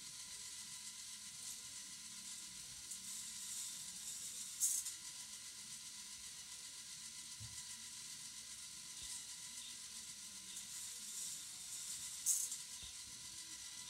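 K'nex toy roller coaster running, a steady faint hiss and hum under it, with a short, loud rattling clatter twice, about seven and a half seconds apart, as a car runs along the plastic track.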